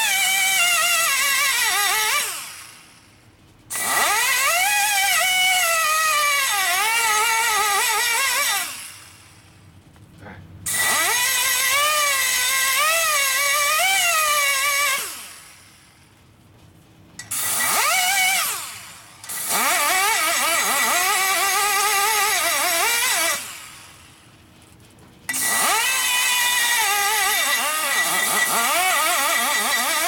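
Die grinder with a carbide cutter porting the aluminum exhaust port of a Shovelhead cylinder head, knocking down rough casting and high spots. It runs in about six bursts of a few seconds each. Its high whine wavers up and down as the cutter is pushed into the metal, then winds down in the short pauses between bursts.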